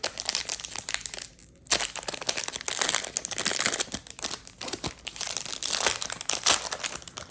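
Crinkling and rustling of a baseball card pack's wrapper as it is opened and handled, with a short lull a little over a second in.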